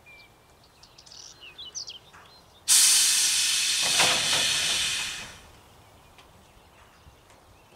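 A loud burst of compressed air hissing from the cage truck's pneumatic system. It starts abruptly about three seconds in and dies away over two to three seconds.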